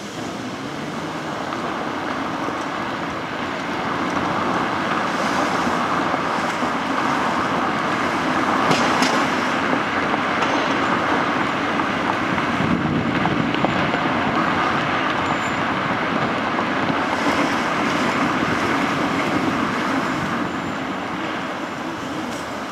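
Car driving on city streets: steady road and tyre noise with surrounding traffic, growing louder about four seconds in as the car pulls away and picks up speed, and easing a little near the end.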